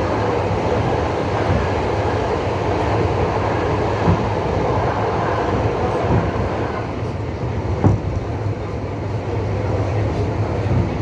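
Passenger train running along the track, a steady rumble with a few separate sharp knocks of the wheels on the rails.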